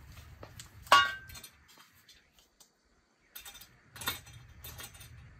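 A single sharp metallic clink with a brief ring about a second in, followed by a few faint clicks. These are the sounds of handling the steel wall bracket, the screw and the electric drill.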